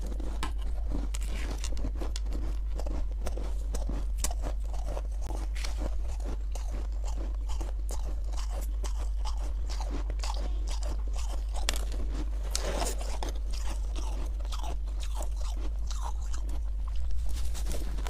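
Soft, powdery freezer frost being bitten and chewed, a dense, irregular run of small crunches. A steady low hum runs underneath.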